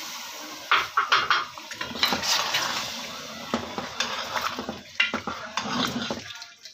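Steel ladle stirring chicken, tomatoes and wet masala in a metal cooking pot, with repeated clinks and scrapes of the ladle against the pot.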